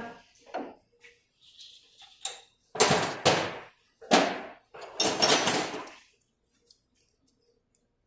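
Three short bursts of metal clatter and scraping, from about three seconds in: small steel parts being handled, the axle-nut retainer and cotter pin picked up for refitting on the front hub.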